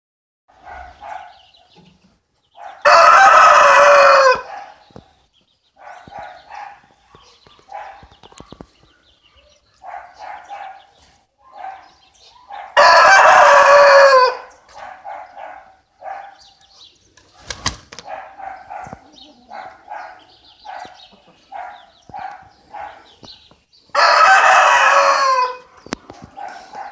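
Rooster crowing three times, each crow loud and about a second and a half long, ending on a falling note. Quieter short clucking calls come in between.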